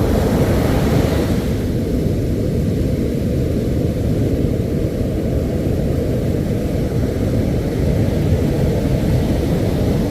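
Wind buffeting the microphone: a loud, steady low rumble, with a little extra hiss in the first second or so.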